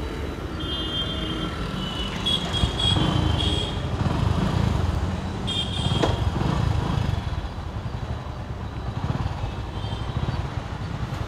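Street traffic: motorcycles and auto-rickshaws running past with a steady low engine rumble, broken by a few short high-pitched tones in the first half and one sharp click about six seconds in.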